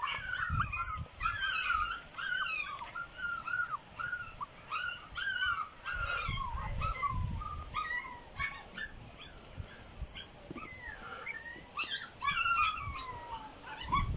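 Young puppies whimpering and yipping in a rapid, nearly unbroken string of short high cries, many sliding down in pitch. A few sharp clicks and some low thumps are mixed in.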